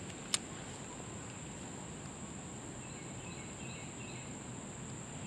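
Quiet creekside ambience with a steady high-pitched insect drone, likely crickets. There is a single sharp click about a third of a second in, and a few faint bird chirps around three to four seconds in.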